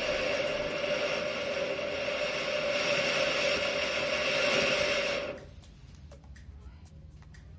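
Firework fountain hissing steadily as it sprays sparks, with a few held tones in the hiss; it cuts off suddenly about five seconds in as it burns out, leaving faint scattered ticks.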